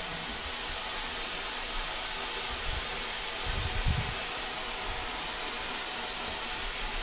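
Steady hiss of steam in the cab of steam locomotive 4110 as it stands with steam up, with a faint low knock about four seconds in.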